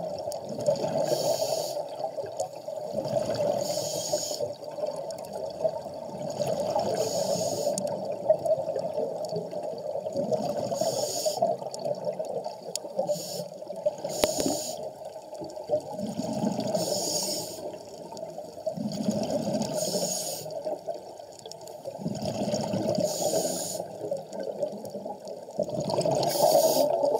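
Scuba diver breathing through a regulator underwater: a short hiss on each inhale every two to three seconds, and a gurgling rush of exhaled bubbles between them.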